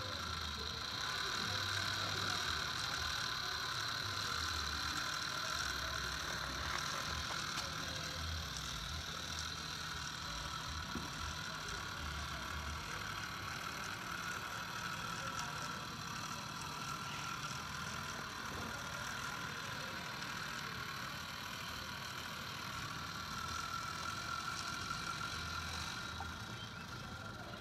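Small electric gear motors of cable-powered model tractors whining steadily as they crawl through sand, one towing the other on a rope.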